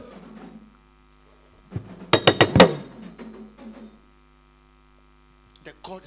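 Steady electrical hum from a sound system, with a quick run of sharp knocks about two seconds in and a few faint clicks near the end.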